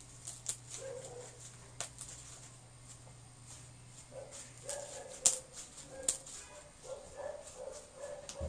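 Slime being worked with microfoam beads, giving scattered sharp crackles and clicks. From about halfway through, short high whines repeat over it.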